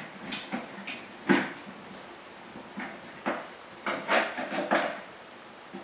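Metal door handle hardware being unscrewed and worked loose from a fiberglass door: scattered clicks and knocks, a sharp knock about a second in and a quick run of clinks and taps in the second half.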